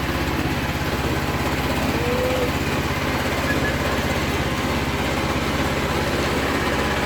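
An engine running steadily at an even speed, with a fast regular pulse.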